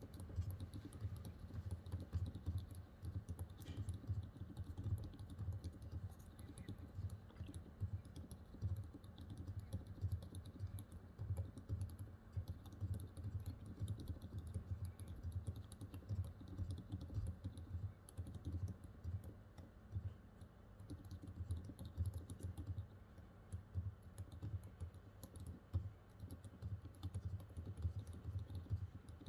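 Continuous typing on a custom mechanical keyboard with Gazzew Bobagum silent linear switches, lubed with Krytox 205g0, in an acrylic case with a silicone dampener. The keystrokes come fast and irregular and sound as low, muted thocks with little click.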